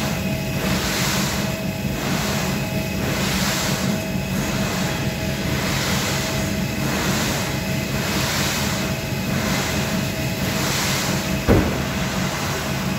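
Indoor ski treadmill running: the motor and moving carpet give a steady rumble and hum, with a swish of skis scraping across the carpet on each short turn, about once a second. A single sharp knock comes near the end.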